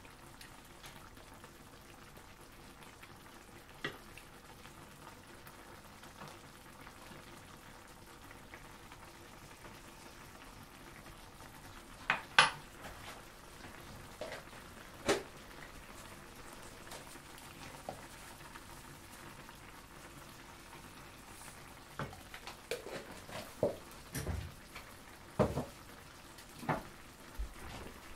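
Gorgonzola cream sauce simmering in a frying pan: a steady bubbling sizzle. Occasional knocks of a wooden spatula against the pan stand out above it, the sharpest about twelve seconds in and several close together near the end.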